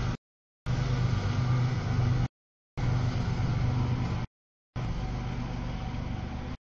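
CSX double-stack freight train passing over a grade crossing, a steady low rumble of the train rolling by. The audio drops out to dead silence for about half a second three times.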